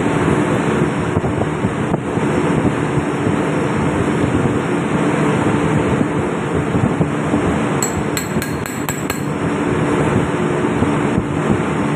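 Steady, loud ship engine-room machinery noise with a constant hum. About eight seconds in, a quick run of light metallic clicks as tools are handled on the fuel pump.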